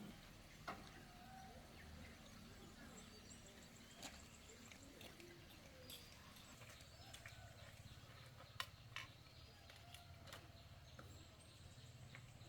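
Near silence: faint outdoor background with a few scattered sharp clicks or taps, the loudest two about two-thirds of the way through.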